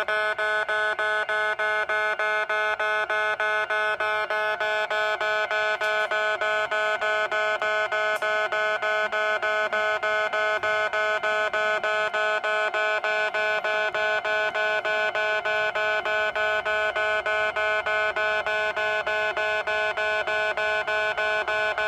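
Railway level-crossing warning buzzer at a station crossing, pulsing at a fast, even tempo with a steady pitch; it stays at full loudness with the barriers down. A faint low rumble joins in during the last few seconds.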